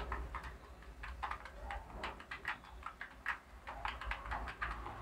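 Computer keyboard being typed on: quick irregular key clicks, several a second, in short runs with brief pauses.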